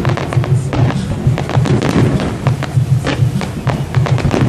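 Fireworks going off in a rapid series of bangs and crackles, over music with a steady pulsing beat.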